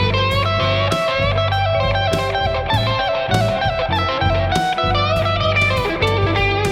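Gibson Les Paul Special Doublecut electric guitar playing a melodic lead line with string bends, one note bent up right at the start, over a backing track with a bass line and a steady beat.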